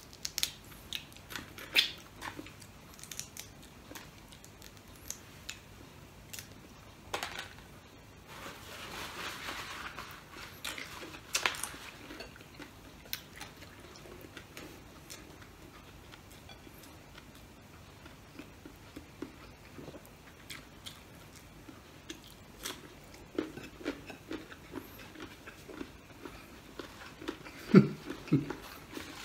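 Close-up eating of steamed crabs by hand: sharp cracks and clicks of crab shell being broken and picked apart, with chewing and crunching between them. A brief low hum of voice comes near the end.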